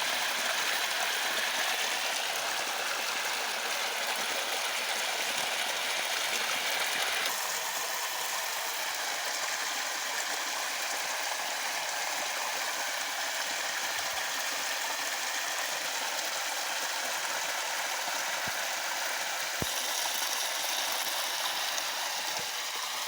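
Running water of a river or waterfall, a steady rushing noise whose character shifts slightly about a third of the way in and again near the end.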